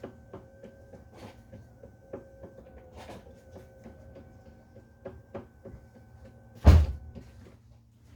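Small clicks and taps of tools and parts being handled during an engine strip-down, with one loud heavy thud about six and a half seconds in.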